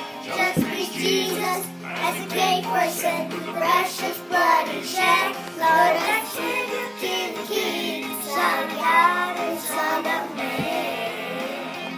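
Young boys singing a Christian song along with a musical backing track.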